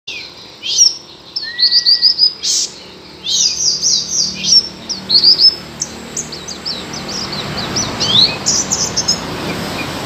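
A white-eye (Zosterops) singing: fast runs of short, high, down-slurred chirps, in bursts with brief pauses, and one lower whistled note about a second and a half in. A steady hiss builds behind the song in the second half.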